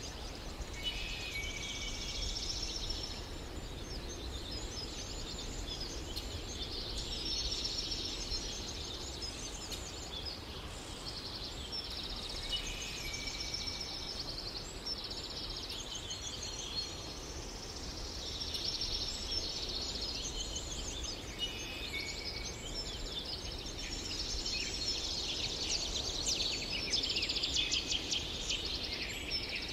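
Birds chirping and trilling in overlapping phrases that come and go, busiest near the end, over a steady low background rumble.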